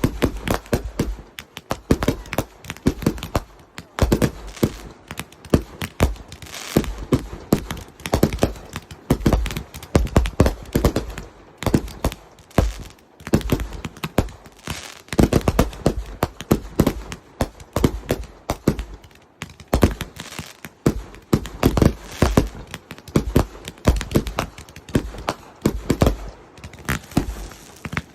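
Fireworks going off: a rapid, irregular string of bangs and crackles with deep thuds, several a second.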